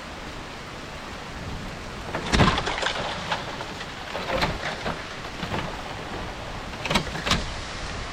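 Rain falling in a sudden storm with strong wind, the wind gusting hard against the microphone several times, with two sharp bursts near the end.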